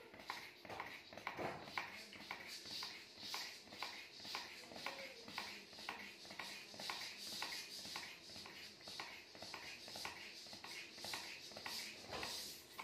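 Hand ball pump being worked quickly to inflate a handball through its needle: regular pump strokes, about three a second, each with a short hiss of air.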